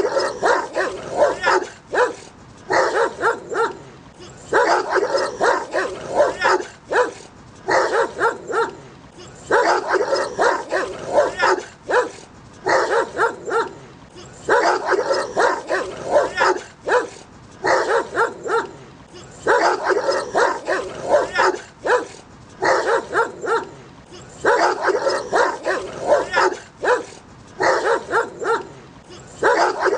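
Dogs barking angrily at each other in rapid volleys: clusters of sharp barks a second or two long, broken by short pauses, over and over.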